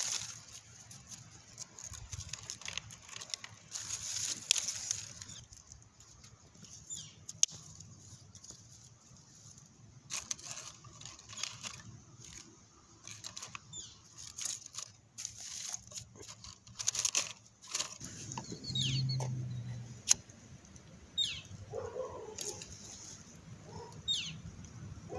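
Dry sticks and paper being handled and packed into a brick rocket stove: irregular rustling and scraping, with sharp clicks and knocks as the twigs are stacked against the bricks.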